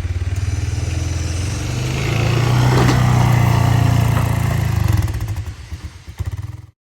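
An engine running steadily with a low, pulsing drone, growing louder for a few seconds and then easing off before the sound cuts off abruptly.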